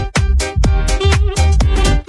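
Background music: an electronic dance track with a steady, fast beat of deep kick drums, about four a second.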